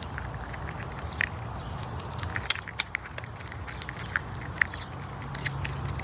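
Eastern chipmunk nibbling and chewing a peanut held in a hand, making irregular small crunching clicks over a low background rumble.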